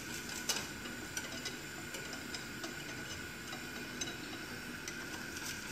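Wire whisk stirring crêpe batter in a glass bowl, its wires hitting the glass in light, irregular ticks.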